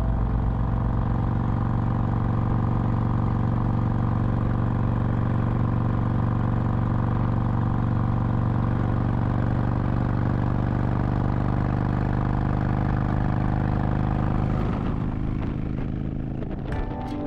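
Motorcycle engine running at a steady pace while riding, with rushing noise over it, easing off near the end.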